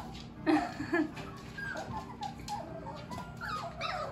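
Nineteen-day-old Shepsky puppies squeaking and whimpering: a string of short, high little cries, the loudest about half a second and a second in.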